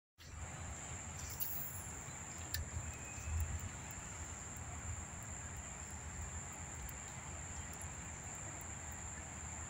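Steady high-pitched buzz of insects, crickets or cicadas, in a mangrove swamp, over a low rumble with a few faint clicks.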